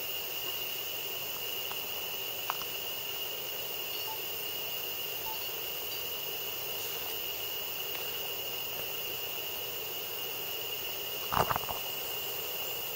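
Steady high drone of rainforest insects on one even pitch. There is a faint tick about two and a half seconds in, and a short cluster of louder knocks and rustles near the end as the camera is moved.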